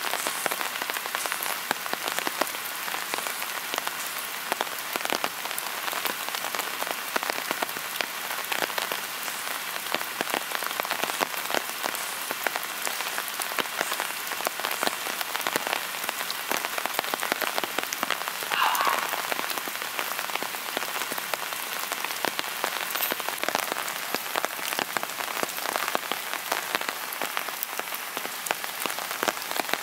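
Steady rain falling, a dense patter of drops hitting surfaces. A brief high-pitched sound slides upward a little under two-thirds of the way through.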